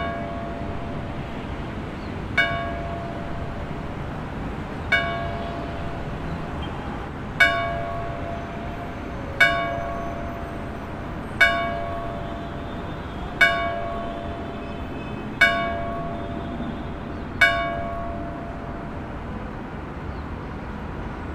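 A single bell tolling nine times, one stroke about every two seconds, each stroke ringing on and fading, over a steady low background rumble. The tolling stops a few seconds before the end.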